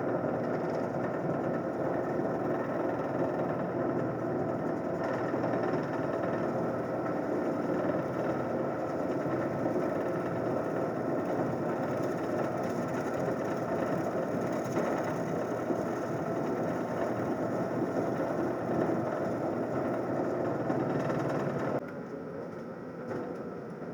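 Wood lathe running with a gouge cutting into a spinning mahogany blank, a steady scraping, whirring noise over the motor hum. The cutting noise drops away about two seconds before the end, leaving the quieter hum of the spinning lathe.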